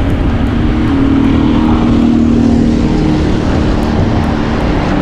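Wind rumbling on the microphone of a camera riding along on a moving bicycle. Over it, the steady hum of a motor vehicle's engine swells about a second in and fades after about three seconds.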